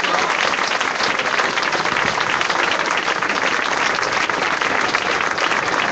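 Crowd applauding, a dense and steady clapping that holds at the same level throughout.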